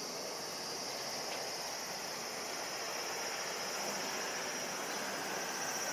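Steady distant outdoor background: an even wash of far-off noise with a steady high insect buzz over it, growing slightly louder near the end.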